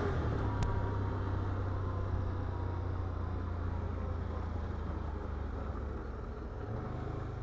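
ATV engine running steadily at low trail speed, a low even drone, with one sharp click about half a second in and a slight rise in engine note near the end.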